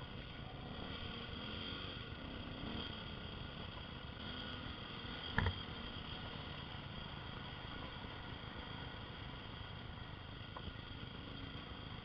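Dual-sport motorcycle riding a dirt trail, heard through a helmet camera as a steady engine note mixed with wind noise. One sharp knock about five seconds in.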